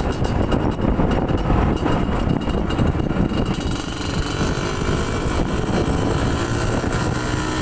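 Yamaha DT125's two-stroke single-cylinder engine running on a test ride of the restored bike, settling to a smoother, steadier note about halfway through.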